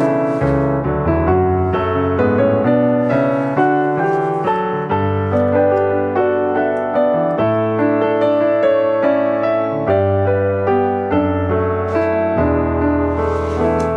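Background piano music, a gentle, steady run of notes.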